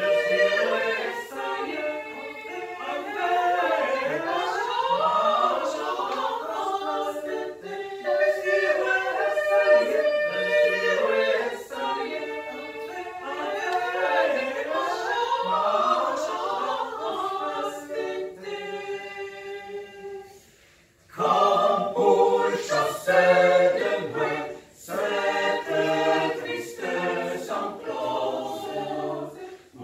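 Small mixed choir of women's and men's voices singing a cappella in several parts. About two-thirds of the way through, a held chord fades almost to nothing, and then the voices come back in strongly.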